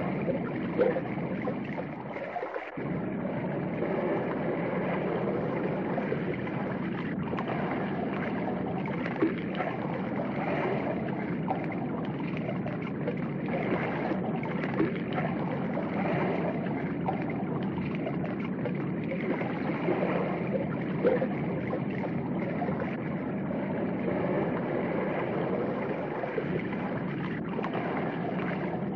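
Steady rushing water from a reef aquarium's circulation and filtration, an even noise with no clear rhythm.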